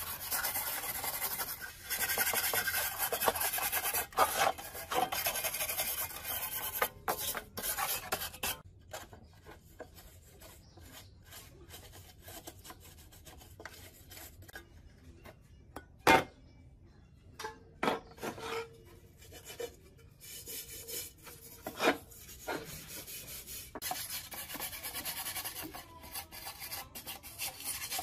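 Rusty, flaking painted steel of old water-pump parts scraped by hand with a wooden block in quick, rough strokes. The scraping stops after about eight seconds, leaving a quieter stretch with a few sharp knocks, and starts again near the end.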